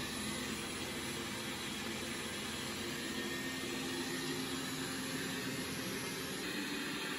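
Robot vacuum cleaner running at the start of a cleaning run, its suction fan whirring steadily with a constant hum.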